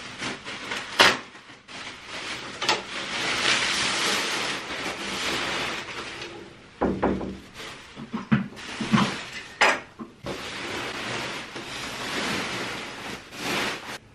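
Bubble wrap and plastic sheeting rustling and crinkling as it is pulled off a large mirror, with long stretches of crackly rustle and a few sharp snaps in between.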